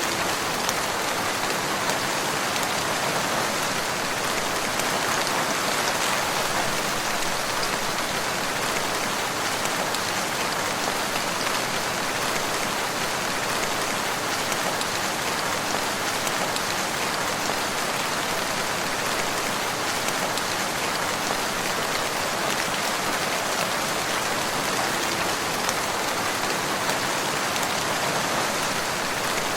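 Steady rain falling, an even, unbroken hiss of many drops with no change in strength.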